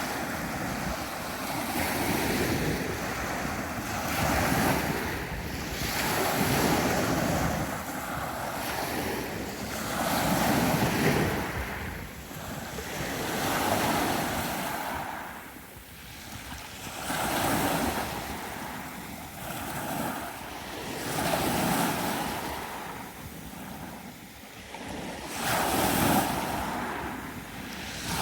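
Sea surf washing onto the shore, swelling and ebbing every few seconds.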